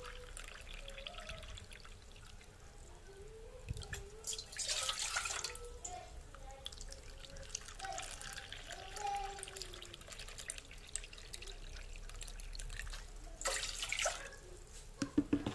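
Tap water running and splashing into a plastic measuring cup, with two louder surges as each cupful is poured into a stainless steel pot, about five seconds in and again near the end.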